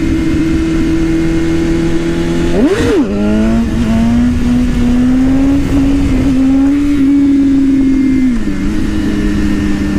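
BMW S1000RR sportbike's inline-four with an Arrow exhaust, cruising steadily, then revved sharply up and down about three seconds in for an attempted clutch-up wheelie. It then pulls hard with the revs climbing steadily for about five seconds, drops back near the end and holds a steady cruise, with wind rushing over the microphone.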